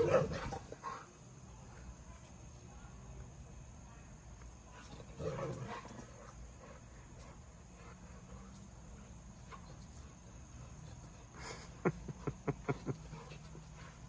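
Siberian huskies vocalizing: a short grumbling call at the start and another about five seconds in, then a quick run of about seven short sharp sounds near the end.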